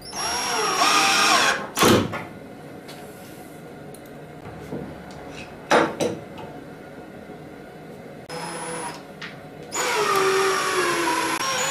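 Cordless drill driving screws into a plywood cabinet, in two runs of a second or two: one at the start and one near the end, where the motor's pitch falls. A couple of sharp knocks come between the runs.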